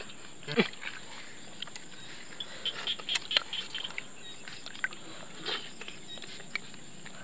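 Wet sucking slurps of cooked snails being sucked out of their shells, with small clicks of the shells in between. There is one slurp about half a second in, a run of clicks around three seconds in, and a softer slurp at about five and a half seconds.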